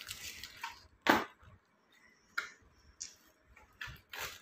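A few sharp clicks and knocks from plastic-wrapped firecracker packets being handled, the loudest knock about a second in.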